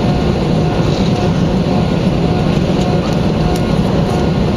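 Airbus A320neo cabin noise heard from a window seat: its Pratt & Whitney geared turbofan engines running with a loud, steady rumble, a few faint steady tones above it.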